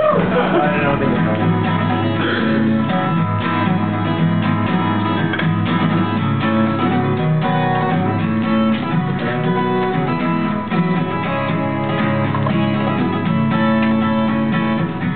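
Acoustic guitar strummed and picked in an instrumental introduction to a song, with no singing yet.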